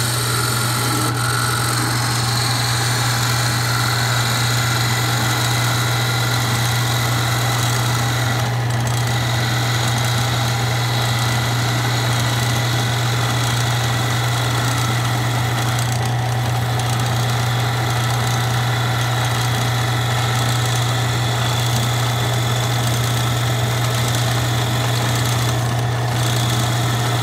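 Craftsman wood lathe running steadily with a low motor hum while a parting tool cuts a groove into the spinning maple stock.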